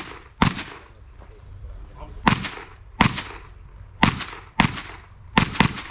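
Sig MCX Spear rifle firing seven shots at an irregular pace, some as quick pairs, each shot followed by a short echoing tail.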